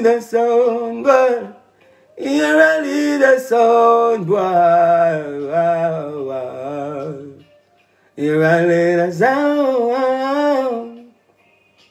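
A man singing a cappella into a close microphone, drawing out long wavering notes with few clear words, in three phrases broken by short pauses about two seconds in and again near eight seconds.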